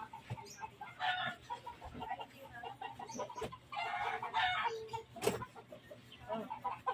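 Chickens clucking in short repeated calls, with two longer, higher squawks: one about a second in and one around four seconds in.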